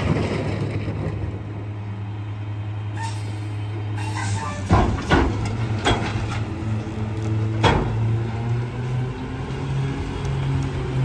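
McNeilus rear-loader garbage truck's diesel engine idling, with a hiss of air from the brakes releasing about three seconds in. Several sharp metal clanks follow. Then the engine pulls away, its pitch rising.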